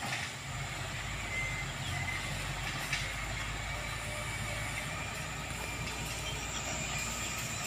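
Motor grader's diesel engine running at a steady low rumble as the machine works the dirt road toward the camera, with a single short click about three seconds in.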